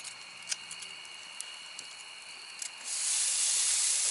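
Raw T-bone steak sizzling on a hot charcoal grill grate. The sizzle starts suddenly about three seconds in as the meat goes onto the grate. Before it there are only a few faint clicks and a faint steady high tone.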